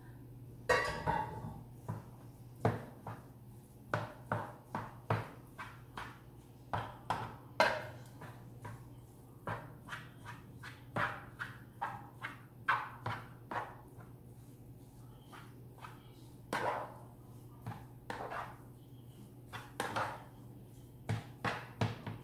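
Rice paddle knocking and tapping against a metal baking tray while cooked rice is spread and pressed: irregular sharp knocks, some with a short ring, about one or two a second, over a steady low hum.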